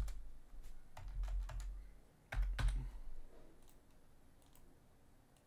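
Typing on a computer keyboard in three short bursts of keystrokes during the first three seconds, then only a few faint clicks.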